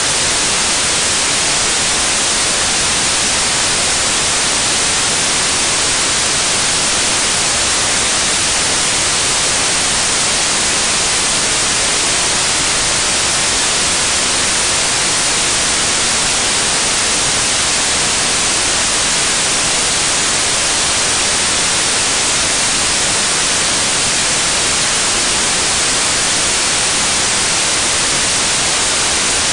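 Loud, steady static hiss, unchanging throughout, with no engine beat, pitch or separate event standing out of it.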